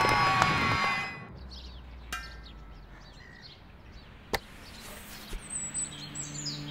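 Film soundtrack music fades out about a second in, leaving a quiet bed of sparse sound effects: two sharp clicks, then faint high chirps and a falling high whistle. Low held musical tones come in near the end.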